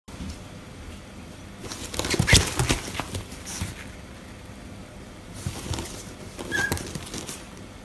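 A Pomeranian moving about inside a zipped mesh pet carrier backpack: two spells of scratching and rustling against the fabric and mesh, the first about two seconds in and the second past the middle, with a brief high squeak near the end of the second. The dog hates being shut in the closed carrier.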